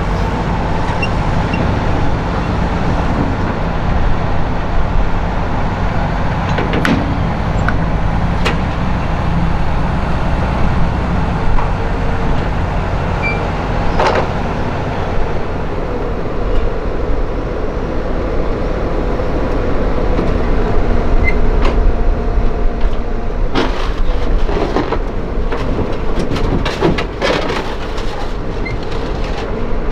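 Diesel engines of a New Holland E145 excavator and a Fendt tractor running steadily while the tractor pulls its dump trailer into place beside the excavator. A series of sharp knocks and clanks comes in the last few seconds.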